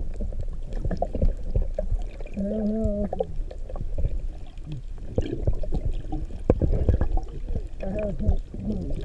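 Underwater sound heard through a camera housing: a steady muffled rumble of moving water, scattered clicks and knocks. Two short muffled humming tones come through, a little after two seconds in and again near the end.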